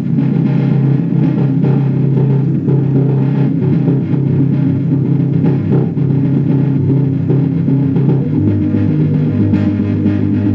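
Music with a strong, deep bass line playing back from a cassette through a portable boombox's speakers and built-in bass woofer. The bass pattern shifts about eight seconds in.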